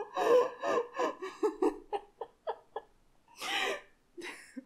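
A young man laughing close to the microphone in a string of quick bursts, then a long breathy exhale about three and a half seconds in.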